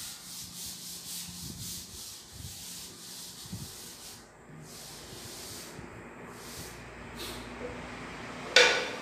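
Chalk scraping on a chalkboard in repeated strokes as lines are drawn, strongest in the first few seconds and then fainter. A single sharp tap comes near the end.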